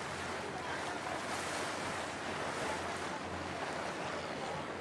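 Speedboat under way: wind rushing over the camcorder's microphone and water rushing past the hull in a steady, loud hiss, with a low engine drone underneath.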